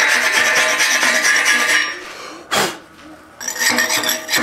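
Background music. It drops away a little past halfway, broken by one short loud burst, and comes back in.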